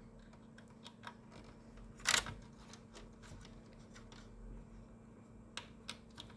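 Small clicks and handling noises from work on a laser printer's fuser unit during reassembly, with one sharper click about two seconds in, over a faint steady hum.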